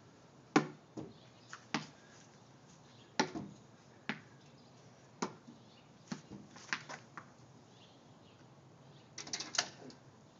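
About a dozen sharp clicks and taps, spaced irregularly, with a quick cluster of them near the end.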